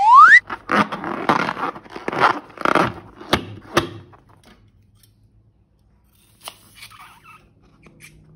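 A short rising squeal, then about three seconds of scissors snipping into a slime-filled balloon, with crinkling and several sharp snips. It goes quiet about four seconds in, and a few faint clicks follow near the end.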